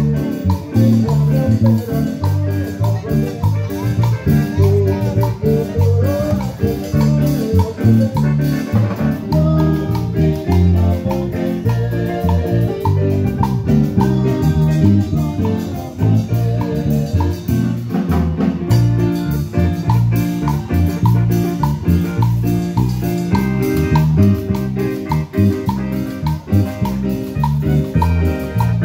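Live amplified Latin dance music from a street band with timbales and an electronic keyboard, over a steady, evenly pulsing beat.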